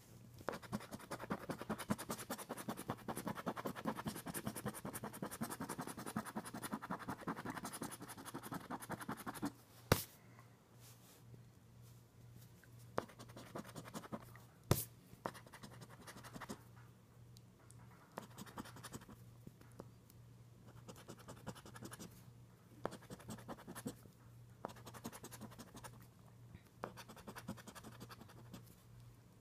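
Scratch-off lottery ticket being scratched: fast, continuous scratching for about the first nine seconds, then shorter, scattered scratch strokes. Two sharp taps stand out, one about ten seconds in and another about five seconds later.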